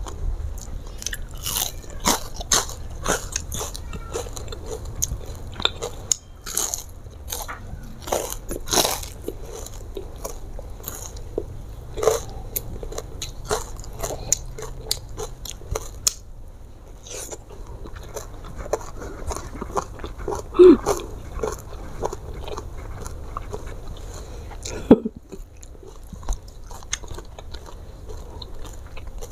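Close-miked eating: chewing with many sharp, crisp crunches as fried tilapia, rice and raw eggplant sambal are eaten by hand. The crunches come thickly in the first half and thin out later.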